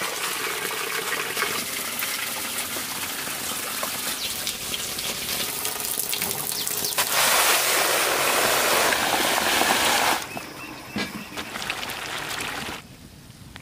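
Water running and splashing steadily. It gets louder for about three seconds past the middle, then drops away shortly before the end.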